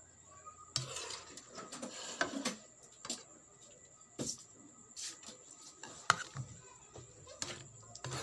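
A spatula scraping and knocking against a wok while stirring a vegetable and tofu stir-fry, in irregular clanks about once or twice a second.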